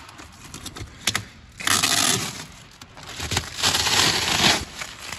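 Protective plastic sheeting over a car's floor carpet crinkling and rustling as it is pulled up by hand, in two long stretches with a few sharp clicks between them.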